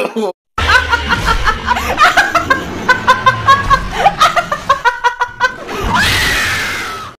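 A woman laughing in quick, rhythmic bursts, then a loud scream about six seconds in that fades away.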